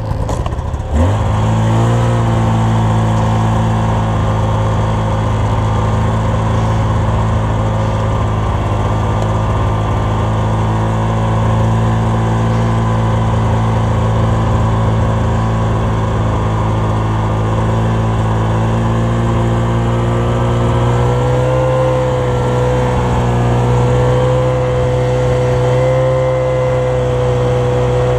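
Snowmobile engine revving up about a second in and then running steadily under load as the sled moves through deep snow, its pitch rising a little about three quarters of the way through.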